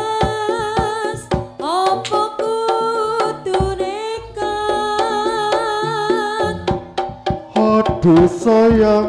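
Live Javanese jaranan ensemble music: kendang hand drums beating a busy rhythm under a sustained melodic line.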